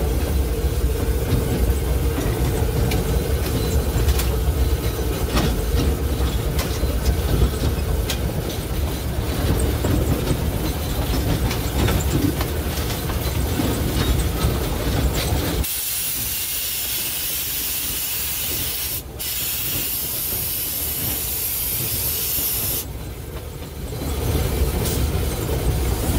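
Steam locomotive heard from inside its cab, running with a steady rumble and rattling clatter. About 16 s in, a loud steam hiss sets in and blows for several seconds, with a short dip partway through. It stops about 23 s in, and the running rumble returns.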